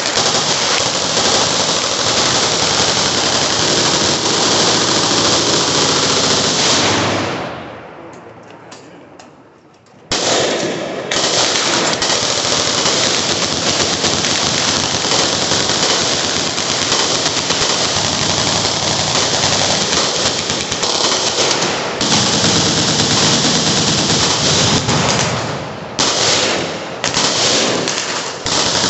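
Machine guns firing together on a firing line: dense, near-continuous automatic fire. It dies down to a few scattered shots about eight seconds in, then resumes abruptly a couple of seconds later.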